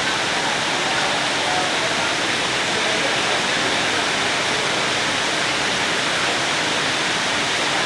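Rain falling steadily: a dense, even hiss that holds at one level throughout.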